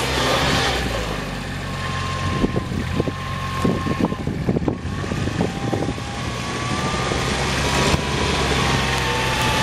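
Kubota RTV utility vehicle's diesel engine running at a steady low speed as it drives, with a thin high whine above it. Gravel crunches and pops under the tyres for a couple of seconds in the middle.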